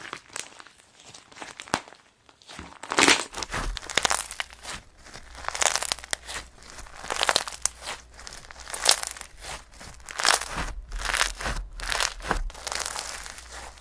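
Crinkling, crackly handling noise in irregular bursts, quiet for the first few seconds and then coming roughly once a second.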